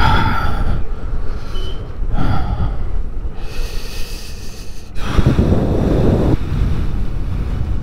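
Wind rumbling on the microphone of a moving motorcycle, with three louder rushes of breath close to the mic, near the start, about two seconds in and about five seconds in.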